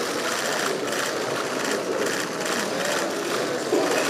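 Many press camera shutters firing in rapid bursts, a dense clatter of clicks, over low murmured conversation.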